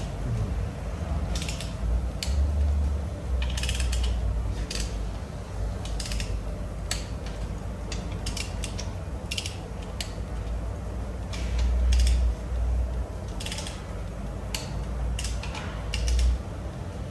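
Ratchet wrench clicking in short, irregular runs as bolts on an engine are tightened to even tightness, over a low rumble that swells now and then.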